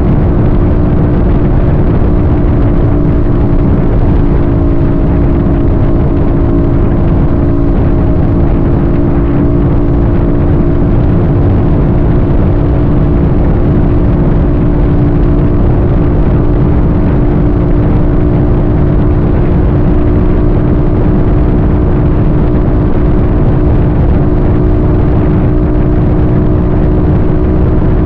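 A road vehicle cruising at a steady speed: a constant hum of unchanging pitch over loud road and wind noise, with no change in speed.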